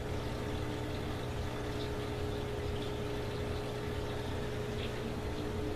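Steady mechanical hum of aquarium equipment, such as air pumps and filters, with a constant low drone and a higher steady tone over a soft hiss.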